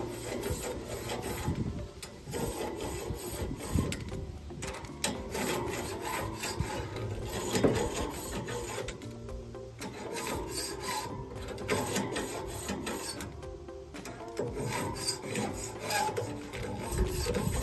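Grill Floss cleaning tool's metal hook scraping back and forth along a single grill grate rail, a rasping of metal on metal and crusted grease in repeated strokes.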